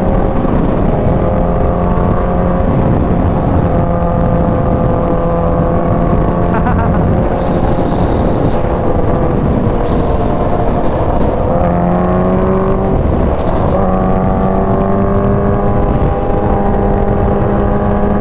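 Kawasaki Ninja H2's supercharged inline-four running at freeway speed, heard from the rider's seat over heavy wind rush. The engine note holds steady, then dips about ten seconds in and climbs again over the next few seconds.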